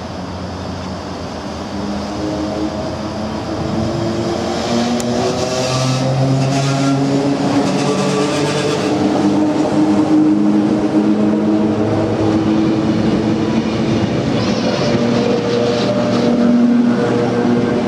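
Vintage Red Set F1 single-deck electric train passing close by at speed. Its traction motors give a whine that rises slowly in pitch, over the rumble of the wheels and a few sharp clunks from the running gear. The sound grows louder over the first few seconds.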